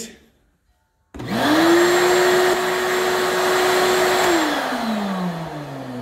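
Shop-Vac wet/dry vacuum switched on about a second in: its motor starts suddenly and spins up within a fraction of a second to a steady whine. It runs about three seconds, then is switched off and winds down, its pitch falling.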